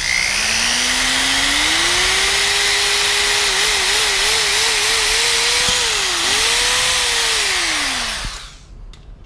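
Power drill boring a hole through a car's front lip: the motor whine climbs as it speeds up, wavers as the trigger is feathered, then winds down and stops after about eight seconds.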